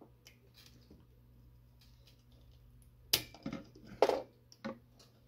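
Sharp metallic clicks and scrapes of a metal pick and soldering-iron tip working at a power transistor's leads on a circuit board, prying up the emitter leads during desoldering. The two loudest come about three and four seconds in, over a steady low hum.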